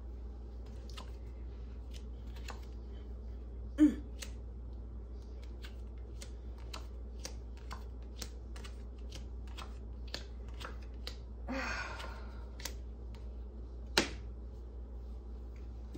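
A deck of cards being shuffled and handled, a run of light card clicks with a brief rustle about twelve seconds in. A card is tapped down sharply on the countertop near the end, with another sharp tap about four seconds in.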